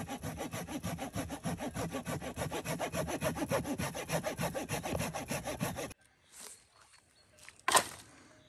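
Hand saw cutting through a wooden branch: rapid, even back-and-forth strokes that stop abruptly about six seconds in. Near the end, one sharp knock.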